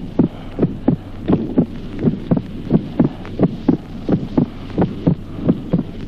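Auscultated human heart sounds: the first and second heart sounds repeat steadily as short low thuds, over a steady low hum. This is the teaching example of splitting of the second heart sound, which divides into two separate components only during inspiration. That is normal (physiological) splitting.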